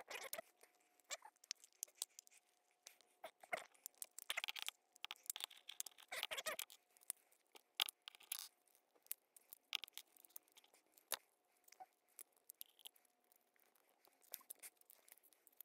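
Spudger prying around the seam of a Logitech Harmony 650 remote's plastic case: irregular scraping and sharp clicks as the case halves are worked apart, with short bursts of scraping about four, six and eight seconds in.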